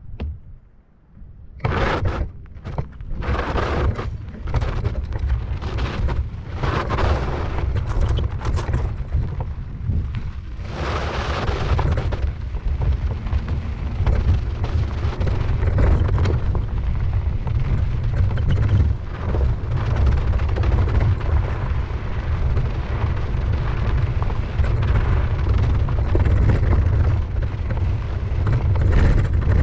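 Wind buffeting the microphone of a camera on a moving off-road e-bike or scooter: a heavy, steady low rumble that starts about two seconds in, with short rattling bursts through roughly the first ten seconds.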